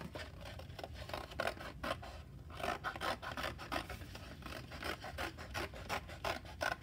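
Scissors cutting through thin cereal-box cardboard: an uneven run of short, rasping cutting strokes, several a second, with a brief pause a little past two seconds in.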